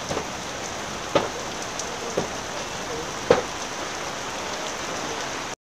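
Heavy stormy rain pouring steadily onto a flooded road and puddles, with a few louder single drop splashes, the loudest about three seconds in.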